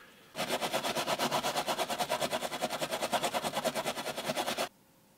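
Brass wire brush scrubbing a corroded die-cast metal toy car base in fast back-and-forth strokes, about nine a second, scouring off acid-damage corrosion loosened by lime remover. The scrubbing starts just after the beginning and stops abruptly about a second before the end.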